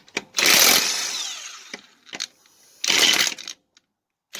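Kobalt 24-volt brushless 1/2-inch cordless impact wrench hammering on truck lug nuts to spin them off. It runs in two short bursts, about a second and half a second long, with quiet gaps and light clicks between, and a third burst starts at the very end.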